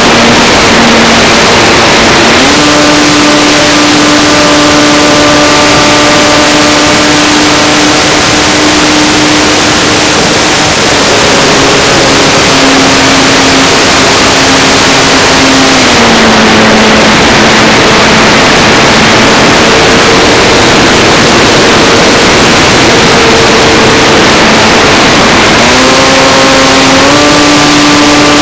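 Electric motor and three-blade propeller of an RC Wildcat model in flight, heard from a camera on the wing: a steady propeller hum under heavy wind rush. The pitch steps up about two seconds in, drops about sixteen seconds in, and climbs again near the end as the throttle changes.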